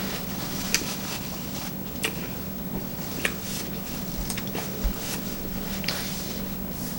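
Close-up chewing and wet mouth clicks of a person eating a sushi roll: a short sharp smack about once a second over a steady low hum.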